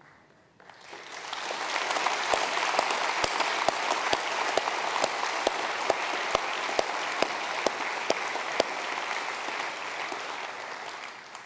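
Congregation applauding, swelling about a second in and fading away near the end, with one nearby pair of hands clapping sharply about twice a second through the middle.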